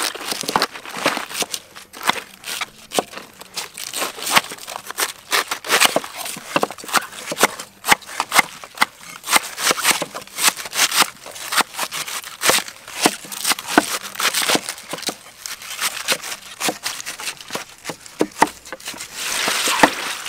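Knives and cleavers shredding cabbage on wooden chopping boards: a quick, irregular run of sharp chops and crisp crunches from several people cutting at once. Near the end, a rustling as a hand turns heaps of shredded cabbage in a metal basin.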